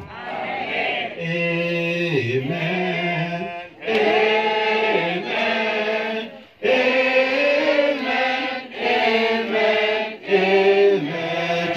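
Slow singing or chanting in long held notes, in several phrases separated by short pauses.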